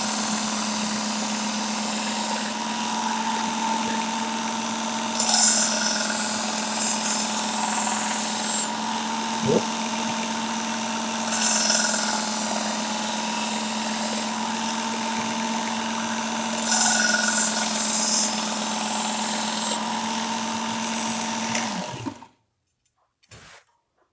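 Work Sharp Ken Onion Edition belt sharpener with the Blade Grinding Attachment running steadily at a raised speed, with a brief hissing grind about every five to six seconds as the chef knife's edge is drawn across the abrasive belt. The motor is switched off near the end and quickly falls silent.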